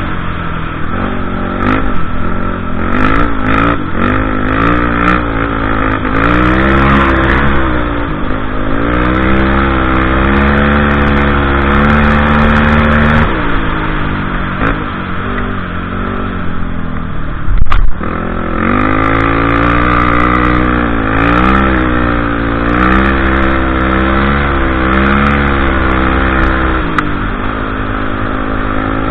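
Can-Am DS 450 sport quad's single-cylinder four-stroke engine running hard, its note rising and falling over and over as the throttle is worked. A short, sharp thump about eighteen seconds in.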